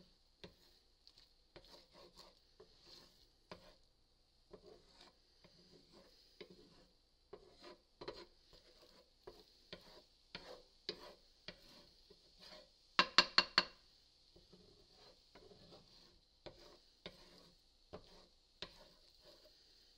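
Spatula stirring and scraping scrambled eggs in a cast iron skillet: irregular scrapes and clicks over a faint steady high hiss. A little past halfway, four quick ringing knocks of the spatula on the pan are the loudest sounds.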